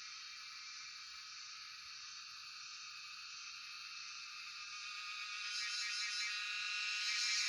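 Chorus of cicadas: a steady, dense, high-pitched buzz that swells louder over the last couple of seconds.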